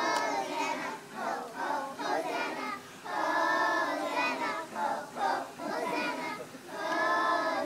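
A group of young children singing a song together, with a couple of long held notes.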